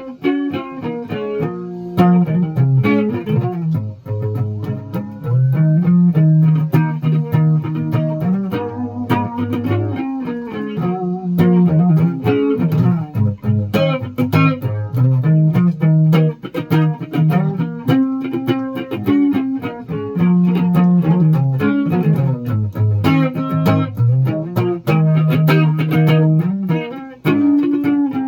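Guitar music: quick plucked notes over low notes held for a second or two.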